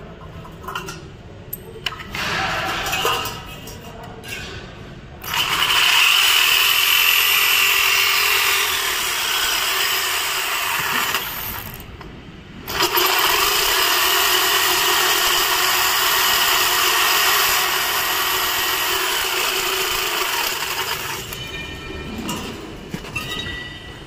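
DeWalt jigsaw cutting galvanised perforated steel cable tray in two long steady runs: the first starts about five seconds in, and the second follows a short pause about twelve seconds in and stops about three seconds before the end. A few knocks and clinks come before the cutting starts.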